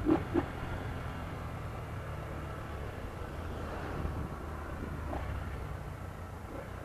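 Small motorcycle engine running steadily at low speed as the bike rides slowly through traffic, with two short thumps in the first half second.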